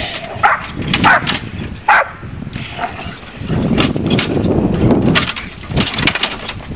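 Pit bull barking in short, repeated barks while tugging at a push lawn mower's front wheel, with a low rumble for about a second and a half in the middle.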